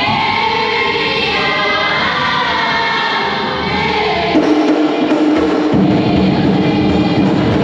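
Background music: a choir singing, changing about halfway through to a band with held notes and a fuller bass.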